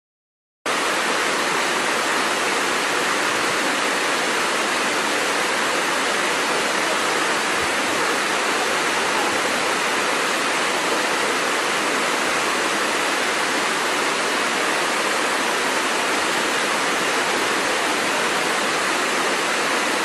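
Steady rush of water from a waterfall, starting abruptly a little under a second in.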